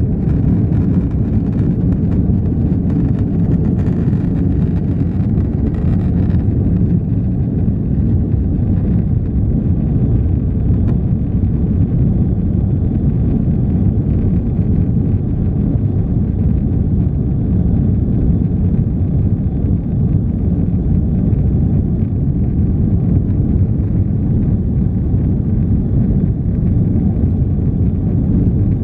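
Airbus A330-200 cabin noise during the climb after takeoff: a steady, low rumble of the jet engines and rushing air.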